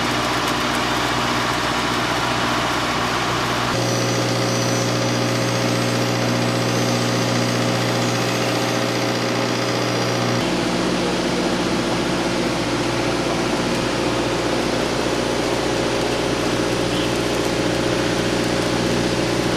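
An engine running steadily at idle. Its hum changes abruptly about four seconds in and again about ten seconds in.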